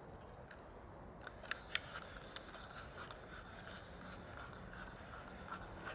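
Faint handling sounds of trimmer line being pulled off its plastic spool: a couple of soft clicks about a second and a half in, with a few fainter ticks, over a quiet steady background.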